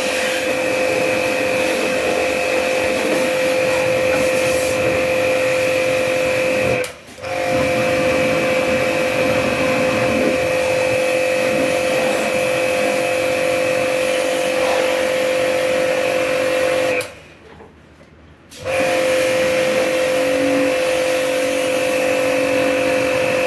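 Electric high-pressure jet pump (washer pump) running with a steady whine over hissing spray. It stops briefly about seven seconds in, and again for about a second and a half near the end, then starts again each time.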